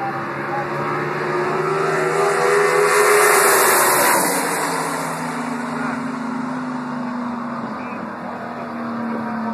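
Two NHRA Super Stock drag cars at full throttle, swelling as they near and pass about three to four seconds in, with the engine note dropping in pitch as they go by, then a steadier drone as they run away down the track.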